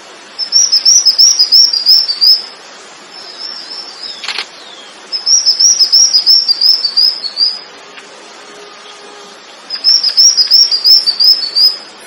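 A songbird singing three loud phrases, each a fast run of short, high chirps lasting about two seconds, with pauses of a few seconds between them and a few fainter notes in the gaps.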